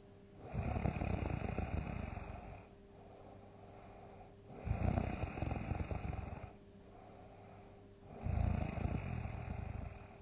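Loud snoring, one snore after another: three long snores about four seconds apart, each lasting about two seconds, with quieter stretches between.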